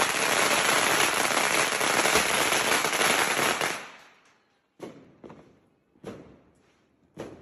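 A string of firecrackers going off in a fast, dense crackle that dies away about four seconds in, followed by a few short isolated pops.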